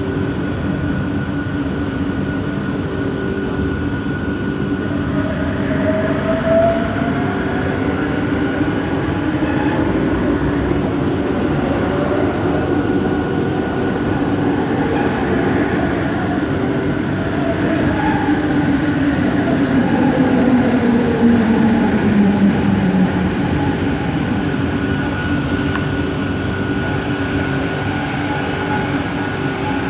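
Inside a Bombardier Innovia ART 200 metro car on the move: steady running noise with the hum and whine of its linear induction motor drive. A whine rises about six seconds in, and another slides down in pitch between about 18 and 23 seconds, the loudest stretch.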